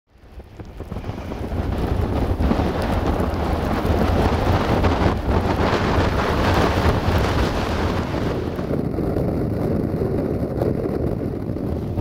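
Blizzard wind buffeting the microphone: a heavy low rumble with a gusty rush over it, fading in over the first second or two.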